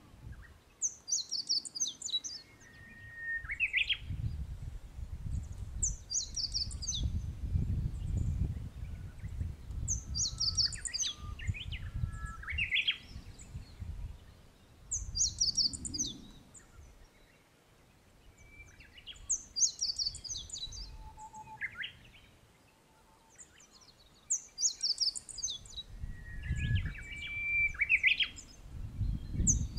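Songbirds singing short, quick phrases that come again every few seconds, each starting with high notes and dropping to a lower whistle. Under them runs a low wind rumble that rises and falls in gusts.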